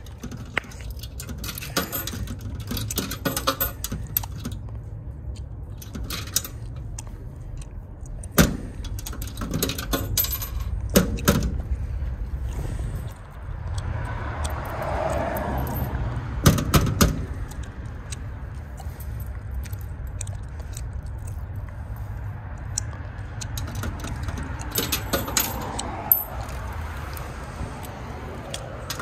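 Metal tokens being fed into the coin slot of a vintage self-serve car wash token box, clinking and dropping inside in clusters of sharp clicks several seconds apart. A steady low rumble runs underneath.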